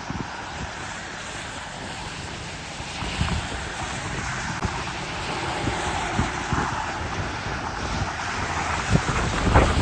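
Wind blowing across the microphone: a steady rush with irregular low buffeting thumps that grow stronger near the end.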